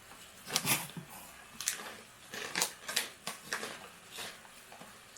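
Crunchy fried corn kernels (Boy Bawang adobo-flavour cornick) being bitten and chewed: sharp, irregular crunches with pauses between them.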